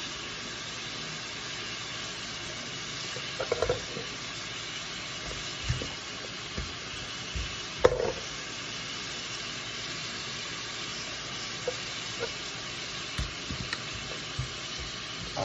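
Cubes of seasoned beef sizzling steadily in a hot nonstick frying pan, cooking in a little olive oil and their own juices with no water added. A few brief soft knocks sound over the hiss.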